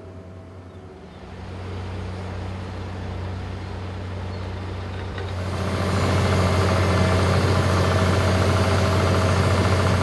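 Heavy diesel road machinery running steadily: first a tandem asphalt roller, then, from about five and a half seconds in, the louder, fuller sound of an asphalt paver being fed by a tipper truck.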